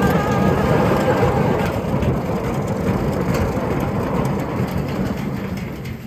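The 125cc motorcycle engine of a homemade drum road-roller bike running under way, with tyre and road noise. The sound fades somewhat near the end.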